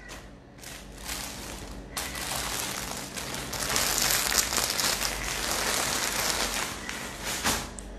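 Rustling and crinkling of clothing being handled and unfolded close to the microphone. It starts about half a second in, grows louder from about two seconds, and stops just before the end.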